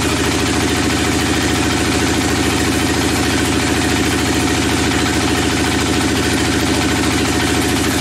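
Bandsaw sawmill's engine running steadily with an even, fast beat.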